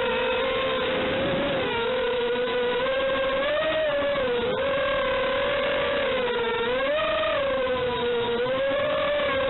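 FPV quadcopter's electric motors and propellers whining steadily, the pitch swelling and dipping every second or so as the throttle changes in flight.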